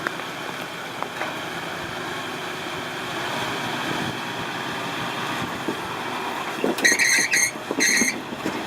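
Off-road Jeep engine running steadily, with a few knocks. Near the end comes a loud, high-pitched squeal in two short broken bursts.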